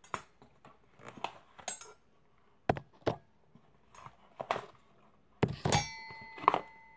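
Stainless steel cutlery pieces handled and lifted out of a presentation box: scattered light clicks and taps, then from about five and a half seconds in, louder metal-on-metal clinks with a ringing note.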